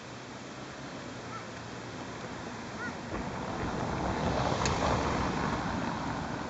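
A road vehicle passing close by: a rushing noise with low rumble that swells to its loudest about four to five seconds in, then eases off.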